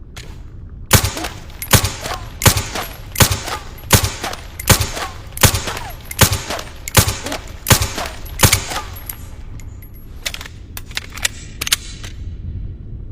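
Silenced pistol firing eleven shots at an even pace, about one every three-quarters of a second, followed a little later by a few fainter clicks.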